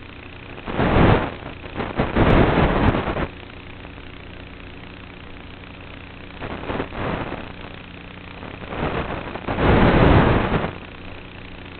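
Small electric RC airplane in flight, with a steady motor and propeller hum and several loud rushes of wind noise about one, two to three, seven and ten seconds in.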